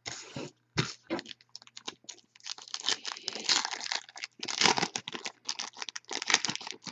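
Foil wrapper of a 2015 Topps Finest trading-card pack being torn open and crumpled by hand: irregular crackling and tearing, busiest in the second half.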